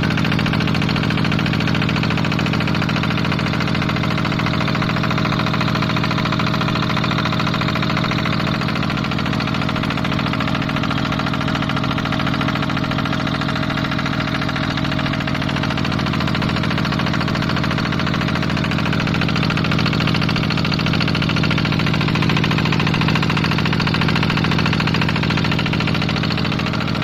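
Kubota diesel engine running steadily.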